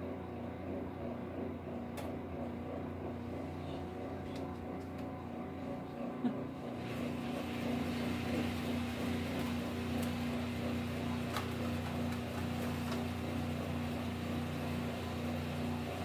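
A steady mechanical hum, like a motor or fan running, that grows louder and hissier about seven seconds in, with a few faint clicks.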